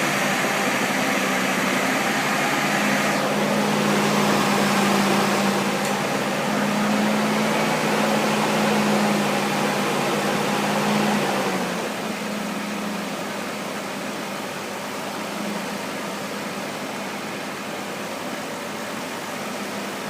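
Mercedes-Benz M104 straight-six petrol engine running steadily, a constant hum that gets somewhat quieter about twelve seconds in.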